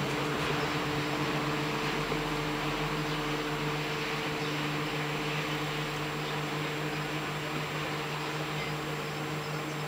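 Speedboat engine droning steadily at planing speed, one unchanging pitch, slowly fading as the boat runs away across the lake.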